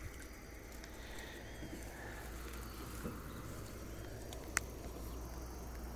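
Faint outdoor riverbank ambience: a steady low rumble with a few faint high chirps, and one sharp click about four and a half seconds in.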